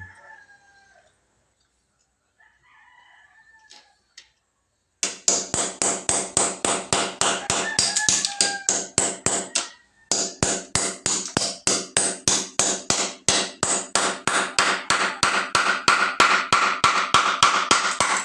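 Rapid hammer blows, about four a second with a metallic ring, chipping out floor tiles, with a short pause about halfway through. The material gives way easily and is described as soft.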